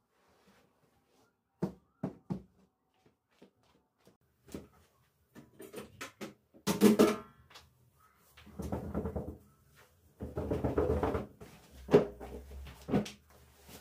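Household handling noises: a few scattered knocks and clicks, then from about halfway a louder clatter and longer stretches of rubbing or scraping noise.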